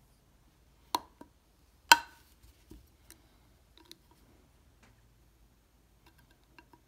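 Metal pick clicking against the ring of a vintage Airguide marine speedometer as it is pried loose. There are two sharp clicks with a brief metallic ring about one and two seconds in, the second louder, then a few faint ticks.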